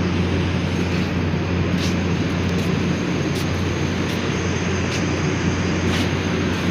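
Steady drone of factory machinery with a deep, even hum, and a few faint ticks now and then.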